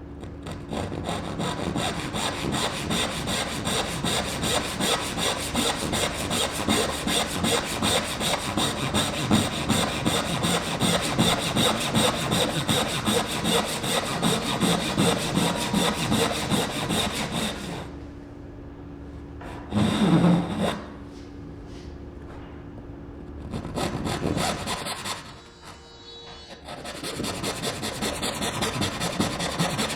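Hand saw cutting the tails of a walnut dovetail joint in fast, steady strokes, which stop a little past halfway. A short, loud low thump follows, then sawing starts again near the end.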